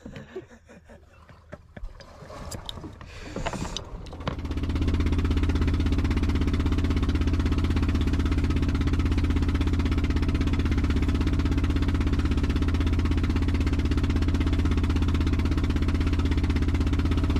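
A small boat's engine running steadily under way, starting about four seconds in after a few faint knocks and handling sounds, with water rushing along the hull.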